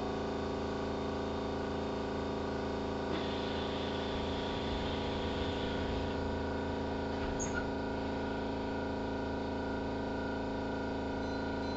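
Cabin sound inside a Keihan 3000 series electric train: a steady hum of many unchanging tones from the car's electrical equipment over a low rumble, with a faint hiss from about three to six seconds in.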